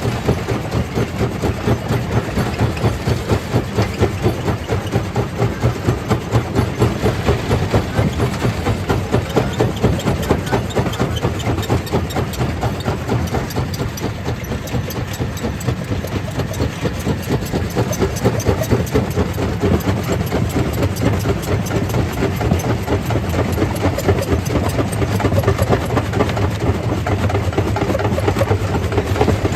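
Stone crusher machine running, a heavy engine-like drone that pulses steadily about twice a second, with a hiss over it.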